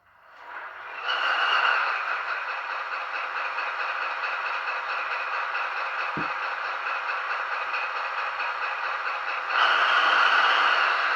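Model diesel locomotive's DCC sound decoder playing a diesel engine sound through a small speaker, thin and without deep bass. The engine starts from silence, builds up over about a second and settles into a steady run. There is a short thud about six seconds in, and the engine steps up louder near the end.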